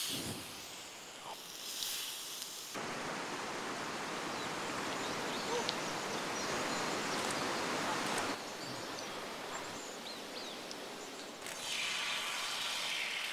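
Fast river water rushing over rocks, a steady hiss of water that sets in about three seconds in, after a quieter stretch of outdoor ambience.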